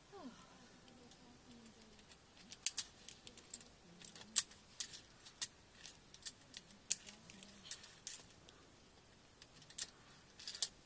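Via ferrata carabiners and lanyard clinking against the steel safety cable and iron rungs: irregular sharp metal clicks and taps, a few of them loud, starting about two seconds in.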